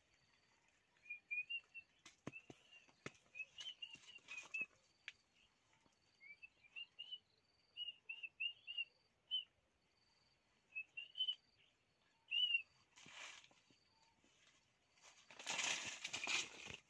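Small birds chirping in quick short high notes, with a few sharp clicks early on. Near the end, a loud burst of rustling as the young monkey runs off over dry leaves.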